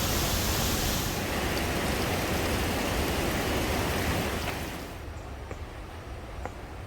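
Steady rushing roar of the Nungnung waterfall's fast-flowing water. About five seconds in it drops to a quieter, duller rush.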